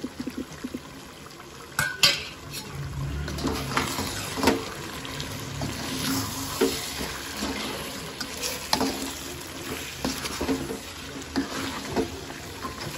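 Metal spatula stirring and scraping chunks of chicken and vegetables around a metal pan, clinking against its sides in repeated strokes over a frying sizzle. A sharp metal knock about two seconds in.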